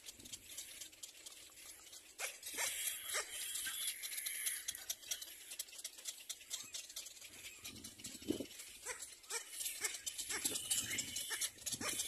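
Calls from a nesting colony of little black cormorants: many short clicks over a steady high chatter, with a few louder, lower calls about eight seconds in and again near the end.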